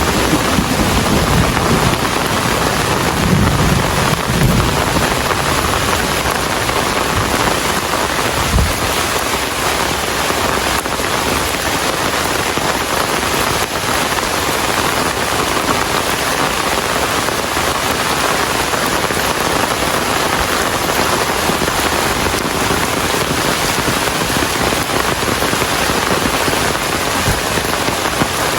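Steady, heavy rain falling on surfaces, an even hiss throughout. Low rumbles of thunder come at the start and again about three to five seconds in.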